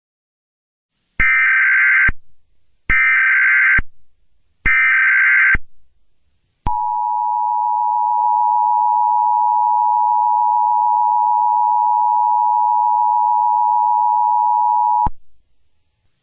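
Emergency Alert System SAME header: three short bursts of data tones, about a second each. Then the two-tone EAS attention signal, a steady dual tone held for about eight seconds that cuts off abruptly; it announces the emergency message that follows.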